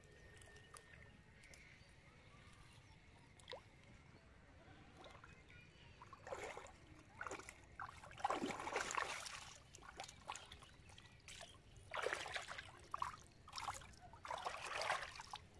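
A fish caught on a bottle hook trap thrashing and splashing in shallow water. The splashing comes in several short bursts over the second half; the loudest is about eight seconds in.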